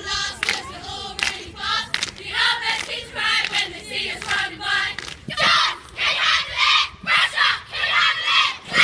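A cheerleading squad shouting a cheer chant in unison. Many voices in a steady rhythm of about two shouts a second.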